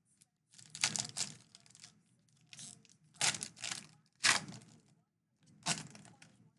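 Foil wrapper of a Donruss baseball card pack being torn open and crinkled in the hands: about five short crinkly rustles, the loudest near the middle.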